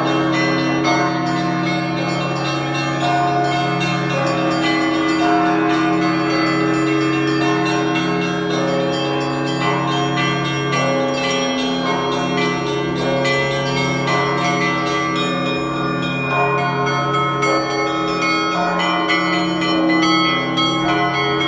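Russian Orthodox church bells pealing together: many smaller bells struck in quick, dense patterns over the deep, sustained hum of larger bells.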